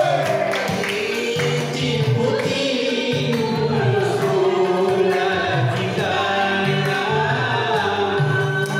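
Music with several voices singing over a bass line.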